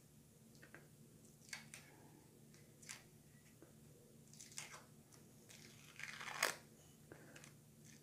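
Faint scratching and crackling of fingertips picking and rubbing at a green tea face mask on the cheek: a few short scratches, with a longer, louder one about six seconds in.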